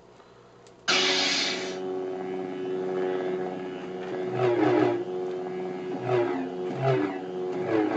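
SaberSD sound module playing lightsaber effects through its speaker: a bright ignition burst about a second in, then a steady buzzing hum. In the second half, four swing sounds bend the hum's pitch as the board is waved, triggered by its motion sensor.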